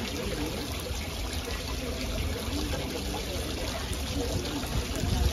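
Steady rushing background noise with a low rumble, under faint distant voices of other diners: outdoor patio ambience.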